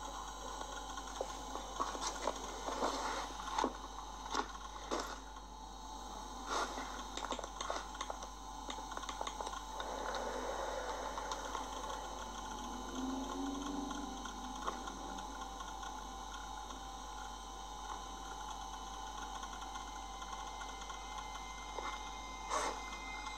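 Irregular plastic clicks and knocks from a laptop being gripped and pried at, most of them in the first several seconds and a couple more near the end, played through a TV speaker over a steady faint hum.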